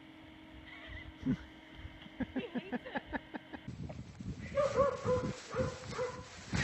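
Short, quick animal calls, a run of small squeaky cries, then after a cut a series of short pitched calls repeated several times, over a faint steady hum.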